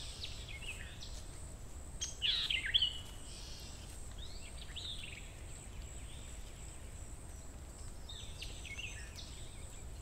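Outdoor ambience of birds calling in several short bouts of quick chirps and downward-sweeping whistles, the loudest about two seconds in, over a steady low hum.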